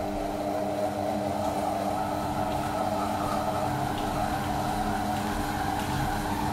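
Silvercrest Monsieur Cuisine Connect kitchen robot running its motor at a steady speed, the blade turning bread dough in the closed steel bowl. It gives an even mechanical hum with one steady tone.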